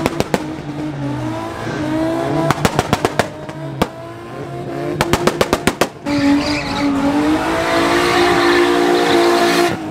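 Car engine revving hard, its pitch rising and falling, with two quick runs of sharp exhaust pops about two and a half and five seconds in. From about six seconds in the revs are held high while the tyres squeal in a burnout.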